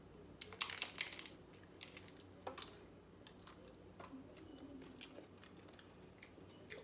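Crunchy hard taco shells being bitten and chewed: a quick run of crisp crunches about half a second to a second in, then scattered single crunches as the chewing goes on.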